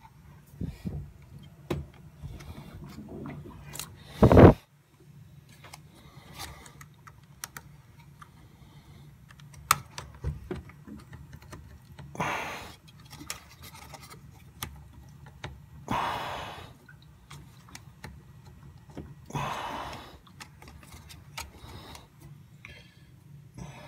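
Hands plugging wire connectors onto a washing machine's drain pump wiring: scattered small clicks and taps, one loud knock about four seconds in, and a few short rustling bursts of handling noise.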